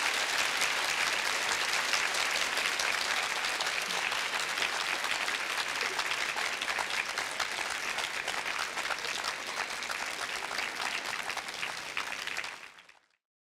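Audience applauding, a dense steady patter of many hands clapping, which fades and cuts off near the end.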